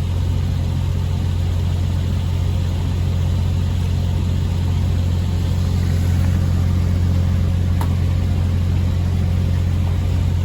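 Heavy rotator tow truck's diesel engine running steadily at an even speed while its winch lines take up load on the recovery rigging.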